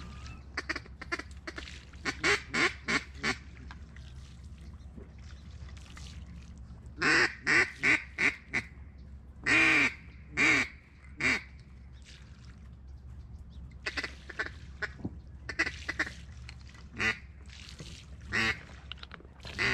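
Runs of loud mallard-style quacks: about five in quick succession, then four, then three longer, louder ones near the middle, followed by softer scattered quacks.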